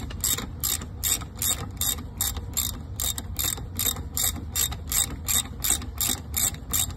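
Socket ratchet wrench backing out a brake-line banjo bolt, its pawl clicking in an even train of about four clicks a second as the handle is swung back and forth.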